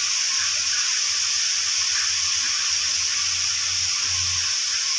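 Steady hiss of food cooking in a pan on the stove, with a faint low hum underneath.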